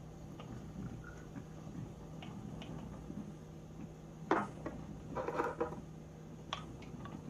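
Light clinks and knocks of cups or dishware being handled, with one sharper knock about four seconds in and a brief clatter just after, over a steady low hum.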